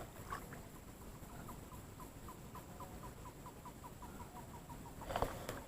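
A bird calling: a run of about fifteen short notes, about five a second, each dipping slightly in pitch. A brief rustling clatter near the end.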